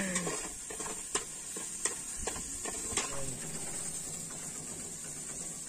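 Metal spoon stirring in an aluminium cooking pot over a wood fire, clinking sharply against the pot a few times, over a steady sizzle of spice paste frying in oil.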